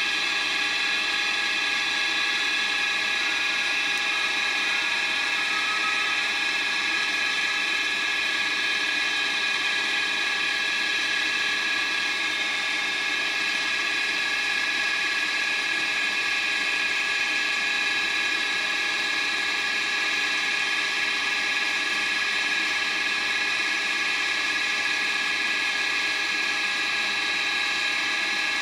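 DB class 101 electric locomotive standing coupled to its train with its on-board equipment running, giving a steady, high-pitched whine made of several tones at once.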